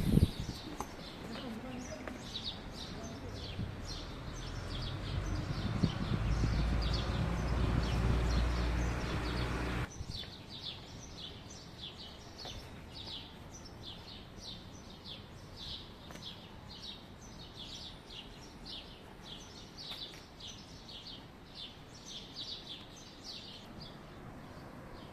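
Small birds chirping again and again, about two chirps a second, over a low rumble that cuts off abruptly about ten seconds in.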